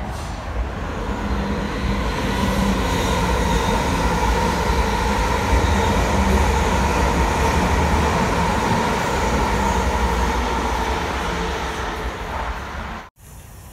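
South Western Railway Class 444 Desiro electric multiple unit passing through the station: a steady rush of wheels on rail with a motor whine, building over the first couple of seconds, holding, then easing. It cuts off suddenly near the end.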